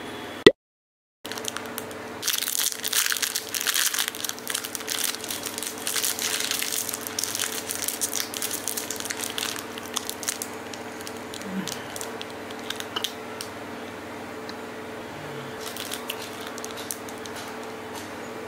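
A sharp click and a brief dropout near the start, then the plastic wrapper of a snack bar crinkling and rustling in the hands for several seconds, thinning to scattered crackles as the bar is bitten and eaten. A steady low hum runs underneath.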